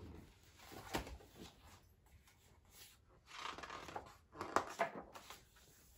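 Pages of a large hardcover picture book being turned and the book handled: a few short paper rustles and soft knocks, the sharpest about a second in and another cluster from about three and a half to five seconds in.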